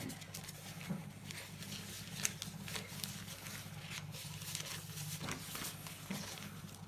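Paper sticker sheets being rummaged through and shuffled by hand: irregular soft rustles and light ticks, over a steady low hum.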